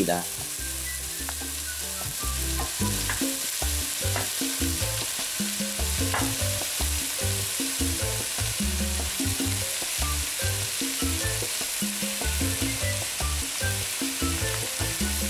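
Diced carrot, celery and onion frying in olive oil in a pot, with a steady sizzle, as pieces of raw ground beef are dropped in on top.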